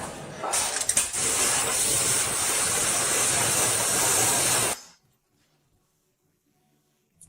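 A loud, steady hiss of air or spray under pressure, starting about half a second in and cutting off sharply about five seconds in. Near silence follows.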